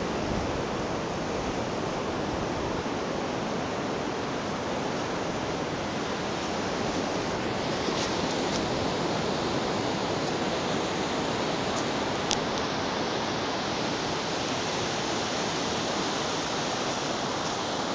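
Steady, even wash of ocean surf breaking on a sandy beach, with a couple of faint clicks about eight and twelve seconds in.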